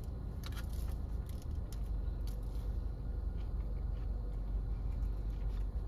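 Steady low hum inside a parked car's cabin, with a few faint clicks and rustles from biting and chewing a sugar-coated cider donut.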